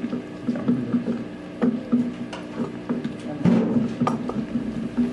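Scattered light clicks and taps of a spoon and small containers handled on a tabletop as baking soda is added to slime mix, over a steady low hum.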